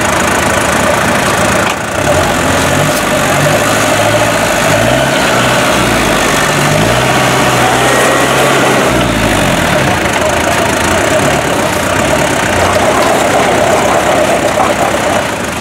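Suzuki Samurai off-roader's engine running, its revs rising and falling a few times in the middle.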